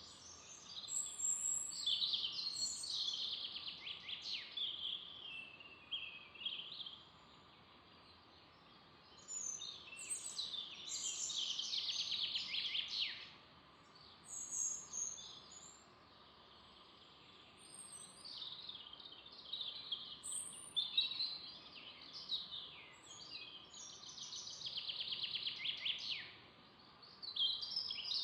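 Songbirds singing in a series of high, quick phrases with fast trills, separated by short pauses, over a faint steady background noise.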